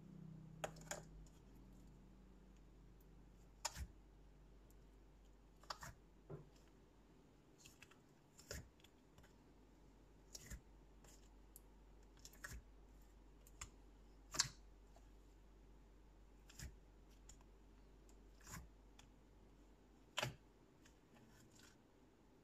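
Fingers squishing and pulling at glossy slime in a plastic cup, making sharp sticky clicks and pops every second or two.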